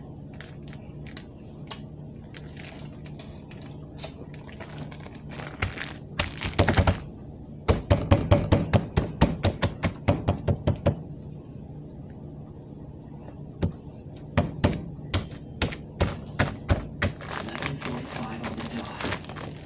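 Kitchen clatter: a run of quick, light knocks and taps as items are handled and put down, in two bouts of about four taps a second.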